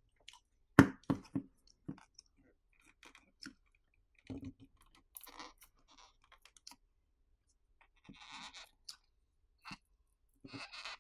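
Pry tools clicking and scraping against a phone's back cover as it is pried up from its heat-softened adhesive: a sharp tap about a second in, then scattered clicks and short scrapes.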